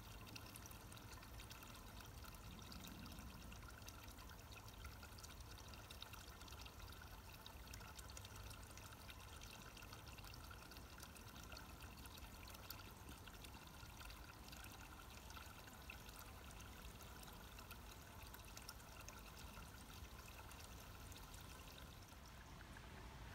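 Thin stream of water from a fountain spout trickling steadily into a trough, faint, with a low steady rumble underneath.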